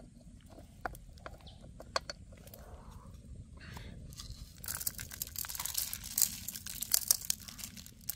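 Coarse salt being sprinkled over whole fish, chillies and ginger in a wok: a dense, crackly patter of grains landing, starting about halfway and stopping just before the end. Before it, a few light clicks as ingredients are set down.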